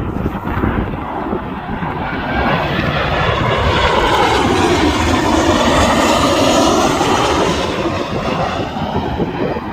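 An aircraft passing overhead: a broad rushing drone that swells to its loudest a little past the middle and then fades, with a sweeping rise-and-fall in its tone as it goes by.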